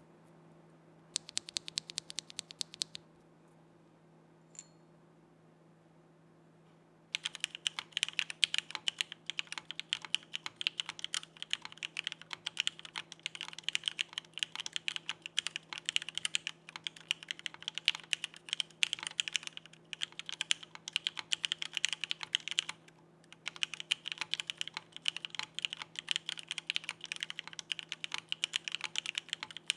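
Typing on a Frog by Geonworks mechanical keyboard with stem-lubed TTC Wind linear switches on an aluminum plate. There is a short run of keystrokes about a second in and a single click a few seconds later, then fast, continuous typing that breaks off once, briefly, near the end. A faint steady low hum runs underneath.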